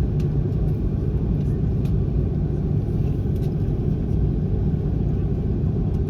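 Steady low rumble of an Airbus A330-300's cabin heard from a passenger seat: the Rolls-Royce Trent 700 engines and airflow, with a few faint ticks over it.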